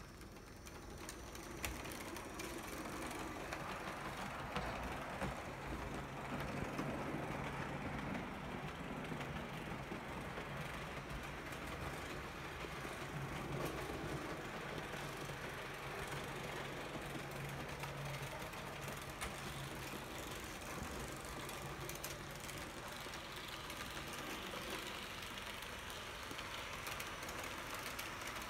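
Märklin E141 model electric locomotive and two Piko coaches running on the model railway track: a steady rattle of small metal wheels rolling over the rails with fast fine clicking, over a low motor hum. It builds up over the first couple of seconds, then runs on evenly.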